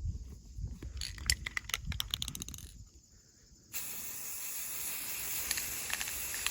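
Aerosol spray-paint can spraying metallic chrome-coloured paint: a steady hiss that starts a little under four seconds in. Before it come scattered clicks and knocks.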